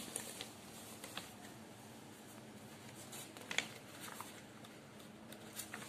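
Notebook pages being turned and handled by hand: faint paper rustles and a few soft clicks, the clearest about three and a half seconds in.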